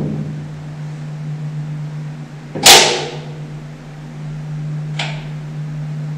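A sharp metal clank about two and a half seconds in, ringing briefly inside the steel tank, and a lighter knock near the end: a tool striking steel while the vac truck's rear auger bearing is tightened. A steady low hum runs underneath.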